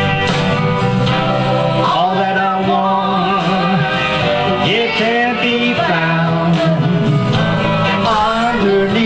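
Music: a country-style Christmas song recording with singing and guitar.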